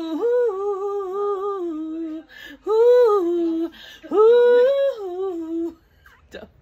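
A woman singing alone without accompaniment: three phrases of long held notes that slide up and down, with short breaths between them. The voice trails off near the end.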